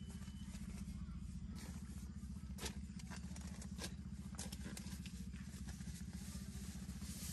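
A small engine running steadily, with scattered clicks and knocks over it.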